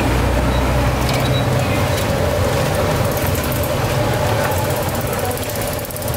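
Roadside traffic noise: a steady rumble of passing vehicles, heaviest in the first second and a half, over a constant hum, with a few faint ticks.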